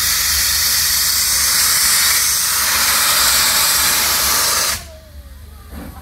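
Steam locomotive venting steam: a loud, steady hiss that cuts off suddenly about five seconds in.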